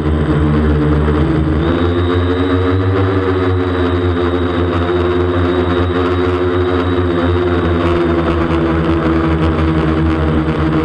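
DJI Flamewheel 450 quadcopter's electric motors and propellers buzzing loudly, heard from the camera on its frame. About two seconds in, the pitch steps up as the drone climbs, then eases slightly lower near the end.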